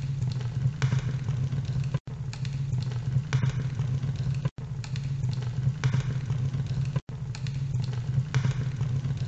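A steady, low engine-like rumble with scattered clicks. It drops out for a split second three times, about every two and a half seconds, like a short recording played on a loop.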